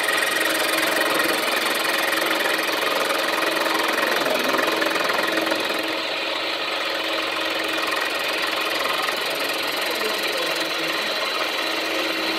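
A machine motor running steadily, a constant hum with a dense hiss over it; it eases slightly about six seconds in.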